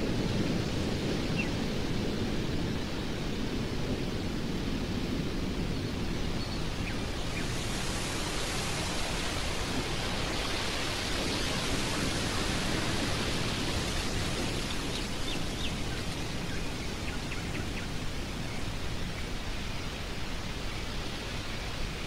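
Stormy wind blowing steadily, swelling in a stronger gust around the middle. A low thunder rumble dies away in the first couple of seconds.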